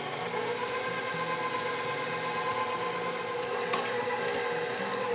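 KitchenAid stand mixer running steadily on low speed, its flat beater working flour into soft butter-and-cream-cheese dough. A light click about three and a half seconds in.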